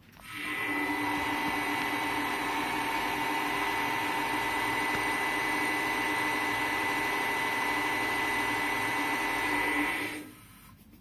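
Belt-driven CEMB balancing machine spinning a steel rotor through a measuring run with a test weight fitted: the electric drive comes up to speed about half a second in, runs with a steady whine, and winds down near the end.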